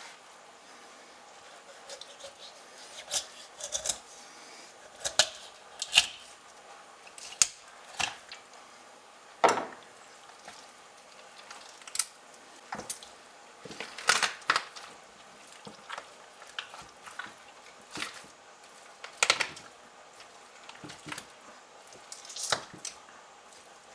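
Irregular sharp knocks and clinks of a knife being handled and worked, some with a short metallic ring, roughly one a second.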